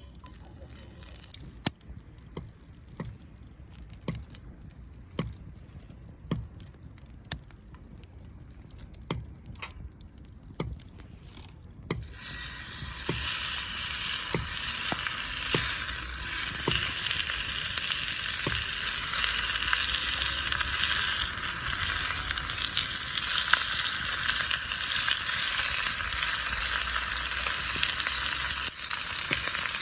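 Food sizzling in hot oil in a pan, starting suddenly about twelve seconds in and running on as a steady sizzle. Before that, only scattered sharp clicks about once a second.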